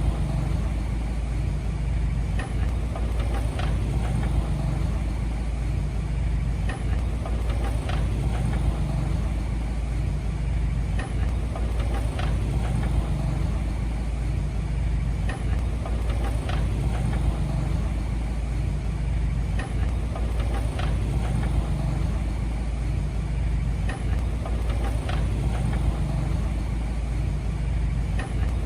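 Heavy diesel earthmoving machine running steadily with a deep low engine note, with sharp metallic clicks or knocks every second or two.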